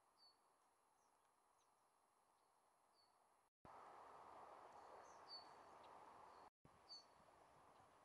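Near silence: faint outdoor background noise with a few short, high chirps from small birds. The background gets louder after a brief dropout about three and a half seconds in, and cuts out briefly again near the end.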